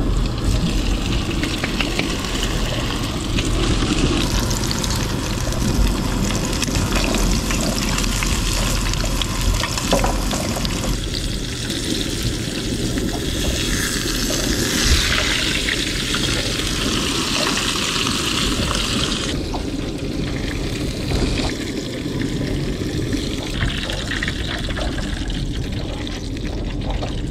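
A breaded lingcod fillet sizzling as it fries in a pan of hot oil. The sizzle swells louder for a few seconds about midway, over a steady low rumble.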